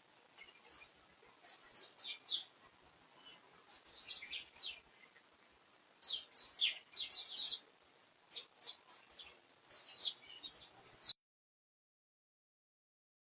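Crimson rosellas chattering: runs of short, high chirps, each sweeping downward, in quick clusters separated by brief pauses. The sound cuts off abruptly a couple of seconds before the end.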